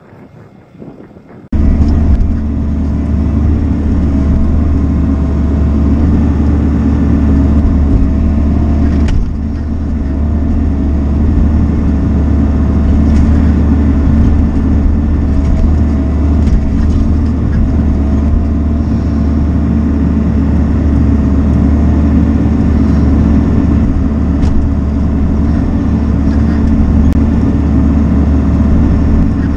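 Bobcat E42 mini excavator's diesel engine and hydraulics running under load while digging a trench, heard from inside the cab: a loud, steady drone with a faint wavering whine above it, cutting in abruptly about a second and a half in.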